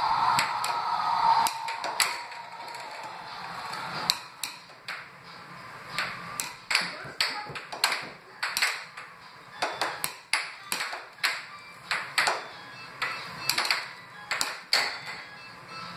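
Air hockey puck clacking off the players' mallets and the table's rails in a fast rally, sharp hits a few times a second, over background music.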